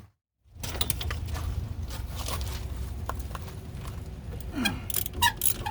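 Hand tools working on a car's strut-mount bolts: scattered short metallic clicks and clinks over a steady low hum.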